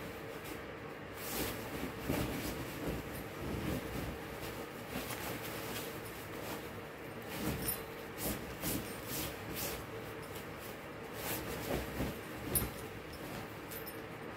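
Bedding fabric rustling and swishing as a duvet cover is pulled and shaken over a comforter, in uneven strokes, over a faint steady hum.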